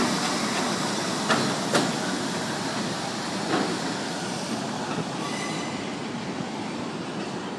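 R62A subway train running away along elevated track, its rumble slowly fading, with a few sharp wheel clacks over rail joints in the first few seconds.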